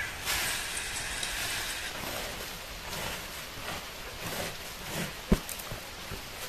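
Dry uncooked rice grains being scooped and poured from a woven bamboo tray into a woven bamboo basket, a steady rustling hiss of sliding grains. One sharp knock about five seconds in.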